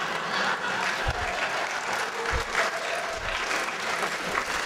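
Audience applauding, with a few short low thumps mixed in.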